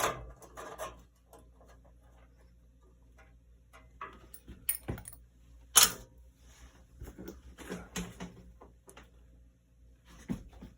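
Scattered clicks, clinks and knocks of metal parts being handled on a bandsaw, with quiet gaps between them and one sharp knock about six seconds in.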